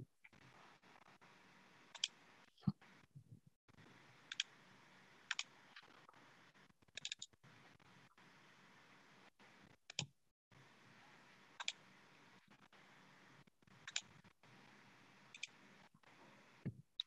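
Computer mouse clicks: about a dozen short, faint clicks at irregular intervals, some in quick pairs, over near silence.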